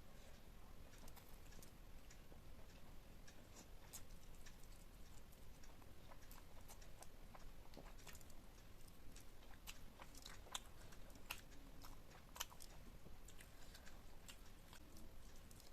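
Close-miked chewing and biting of food: a steady run of small, moist mouth clicks and crunches, with a few sharper bites about ten to twelve seconds in.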